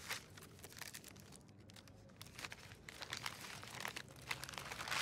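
Paper gift wrap crinkling and tearing as a small present is unwrapped by hand, a run of short crackles that grows busier and louder in the last couple of seconds.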